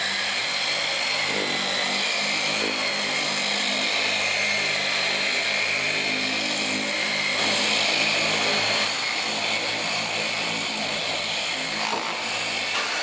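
Handheld electric car polisher with a foam pad running steadily, its motor giving a constant whine as it buffs a first coat of polish into black car paint to take out scuffs.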